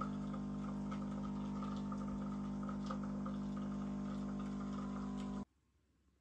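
A steady hum made of several held tones, with faint light ticking over it, cut off abruptly about five seconds in.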